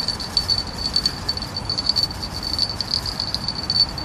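Fishing bell on a rod tip jingling quickly and unevenly, the sign of a fish biting on the line, over a low rumble.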